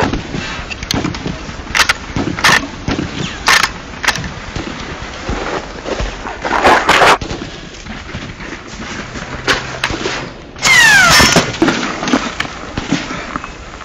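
Scattered gunshots, single sharp cracks at uneven intervals of about one to two seconds, in a film's battle soundtrack. About eleven seconds in comes the loudest moment: a second-long burst of noise with a falling whine through it.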